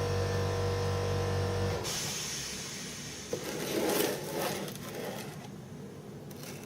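A workshop machine's electric motor runs with a steady hum and is switched off about two seconds in, followed by a few scattered scrapes and knocks of work being handled.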